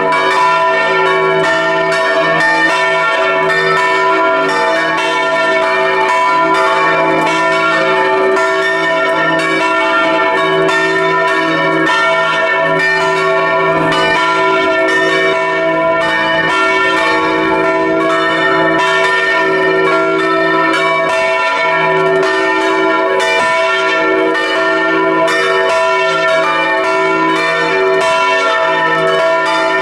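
Several church bells swinging and ringing together in a peal, heard close up in the belfry: a steady stream of overlapping strokes over long, sustained ringing tones.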